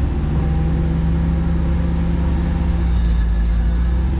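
A 4x4's engine running steadily near idle, with a steady hum that comes in just after the start.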